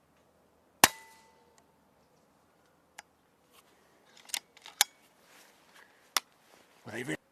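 A magazine-fed side-lever air rifle fires once, about a second in: a sharp crack with a short ringing tail. It is followed by several lighter metallic clicks and a brief rattle near the end as the side lever is worked to load the next shot.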